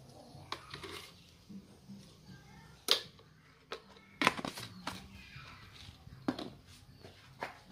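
Several sharp clicks and taps of plastic seasoning jars, a shaker lid and a plastic spoon being handled as seasoning is spooned and shaken over leaves in a stainless steel pot.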